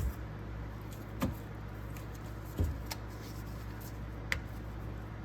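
A few light clicks and knocks of a torque wrench and hex socket being handled and fitted, over a steady low hum.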